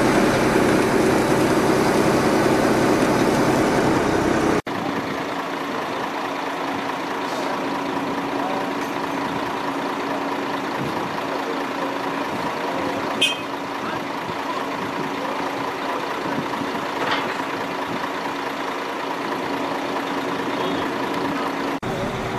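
Truck-mounted cranes' engines running steadily under work. The sound changes abruptly about four and a half seconds in, becoming quieter and thinner, and there is a single short sharp clank about thirteen seconds in.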